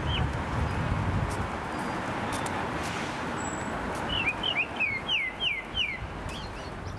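Steady street background of passing traffic, with a bird calling a quick series of short, down-slurred whistled notes about four seconds in.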